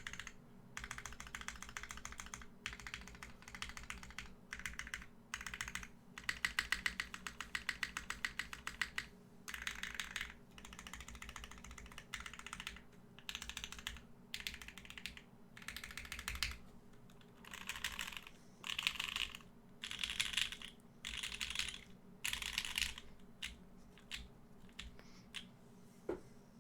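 Geonworks F1-8x mechanical keyboard being typed on in bursts with short pauses: clacky keystrokes from its lubed and filmed Parallel Limited Pewter tactile switches under GMK keycaps on an aluminium leaf-spring plate. A run of fast, even keystrokes comes about six seconds in, and a few scattered single presses come near the end.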